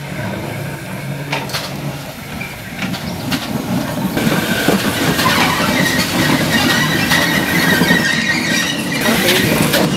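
BR Standard Class 4 2-6-4 tank steam locomotive 80104 rolling past close by, its rumble and wheel clatter growing louder about four seconds in. A steady high squeal runs over the rumble for a few seconds and stops near the end.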